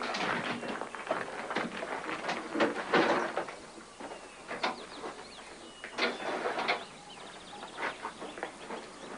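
Knocks and clatter of a stretcher being lifted and pushed into the back of an ambulance, busiest in the first few seconds, with birds chirping faintly.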